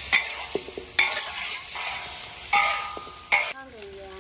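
Metal spatula scraping against a wok as sliced meat sizzles and fries in hot oil, with four hard scrapes, some leaving a brief metallic ring.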